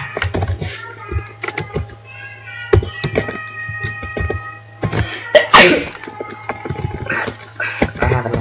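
Computer keyboard keys clicking irregularly as code is typed, over a steady low hum and faint background music. About five and a half seconds in comes a short, loud, breathy burst of noise, the loudest sound.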